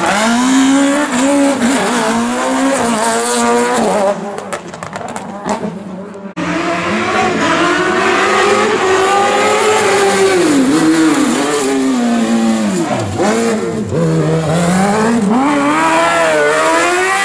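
Competition car engines revving hard through a tight bend. First a rally hatchback's engine climbs and falls through gear changes. After an abrupt cut, an open-frame buggy's engine revs high, its pitch swooping down and back up as it brakes and accelerates again.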